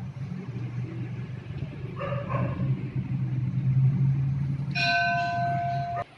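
A temple bell ringing near the end, its tone held for about a second before it cuts off suddenly, over a steady low rumble.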